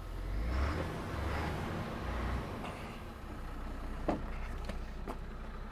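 MAN TGL lorry's six-cylinder diesel idling steadily, with a hiss of escaping air for the first couple of seconds from an air leak at the driver's seat, and a few light clicks near the end.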